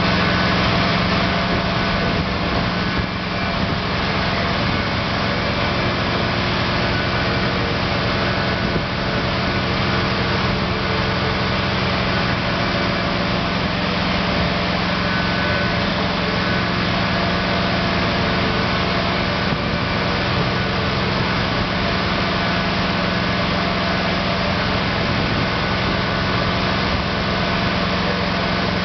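Hydraulic excavator's diesel engine running steadily while its hydraulics work a newly fitted thumb attachment through its range of motion.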